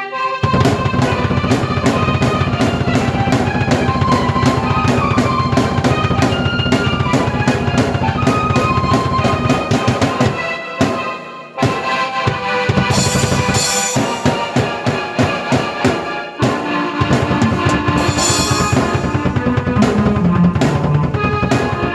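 A drum kit and a keyboard playing a piece together: a steady kick-and-snare beat under a keyboard melody. The beat breaks off briefly about halfway through, with crash cymbals ringing a little later and again near the end.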